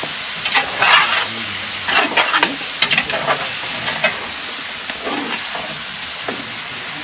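Meat sizzling steadily in a large aluminium cooking pot, with scattered short clicks.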